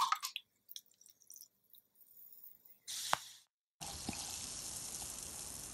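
Fermenting ginger bug (ginger, sugar and water) fizzing in a glass jar, heard close up as a steady hiss that starts abruptly about four seconds in; the fizz is the sign that the wild ferment is alive. Before it, light clicks of a stick stirring in the jar.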